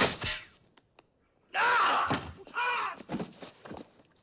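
A single sharp crack of a BB gun shot, followed about a second and a half later by a man yelling and groaning in pain in several loud bursts.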